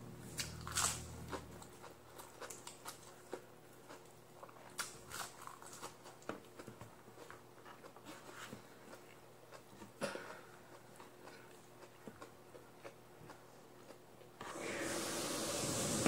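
Faint eating sounds close to the microphone: chewing, lip smacks and small clicks as lettuce and rice are eaten by hand. About 14 seconds in, a steady hiss comes in and continues.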